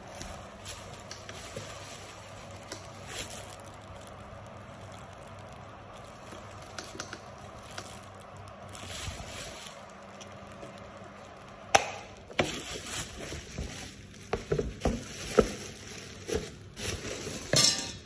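Handling noises: faint scattered clicks, then a run of sharp clicks and knocks in the last third, with the loudest at its start and near the end.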